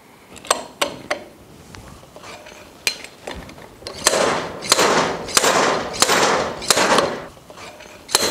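Steel slide-hammer puller working the gear off an outboard prop shaft housing. A few light metal clicks come as it is set, then about five heavy metallic blows with ringing, a little over half a second apart, as the sliding weight is slammed against its stop.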